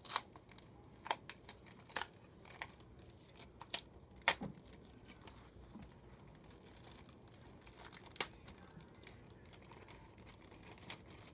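Small clear plastic bag crinkling and rustling in irregular crackles as it is handled and opened by hand.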